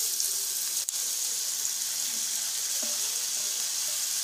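Sliced onions sizzling in a hot frying pan as they are tipped in from a metal tray: a steady hiss with a brief break about a second in.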